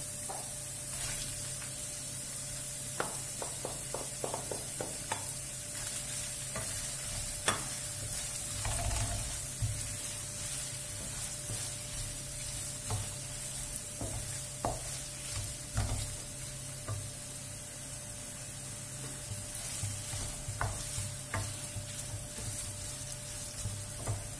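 Chopped onions and cubed lamb liver sizzling in hot oil in a frying pan, stirred with a wooden spoon, with a steady hiss and scattered soft knocks of the spoon against the pan.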